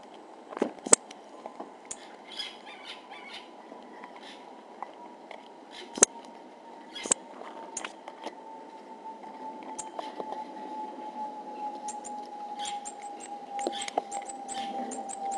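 Pygmy marmosets giving very high, short chirps, with a few sharp knocks as they handle and climb on the hollow plastic treat station around the camera. The loudest knocks come about a second in and about six seconds in. Near the end the chirps come in a quick run of several a second.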